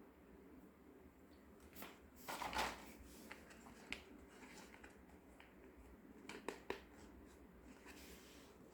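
Faint handling of small plastic toy pieces and packaging: a brief rustle or scrape about two and a half seconds in and a few light clicks, two of them close together near the end.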